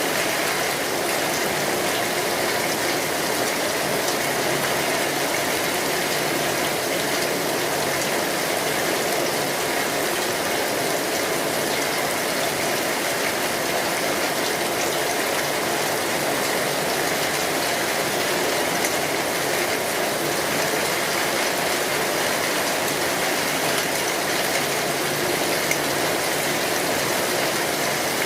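Steady rain on a metal roof, a constant even hiss scattered with small ticks, along with a wood fire crackling.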